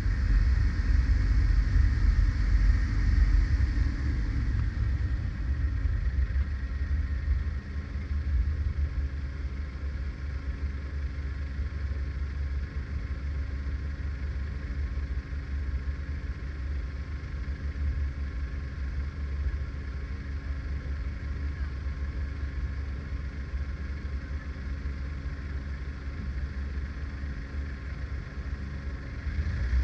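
Car engine and road noise with a steady low rumble: the car is moving for the first few seconds, then quieter after about six seconds as it sits idling at a red light, and the noise begins to build again at the very end.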